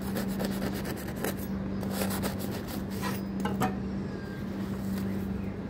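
A knife cutting through the crisp crust of a homemade bread loaf: a quick run of scraping crackles that stops after three to four seconds, over a steady low hum.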